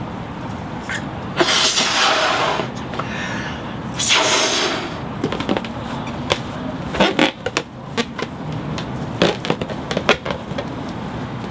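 Rubber balloon being rubbed and squeezed: two longer rubbing stretches, then a run of short squeaks and smacks.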